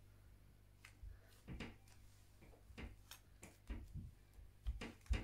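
Faint, irregular clicks and rustling from a thin-plate hair straightener being clamped on and drawn down through sections of long hair, with a few soft low thumps.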